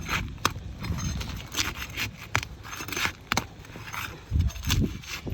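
Scraping, rustling and sharp clicks of hand work on three-tab asphalt roof shingles, typical of a flat bar being worked under a shingle to lift it.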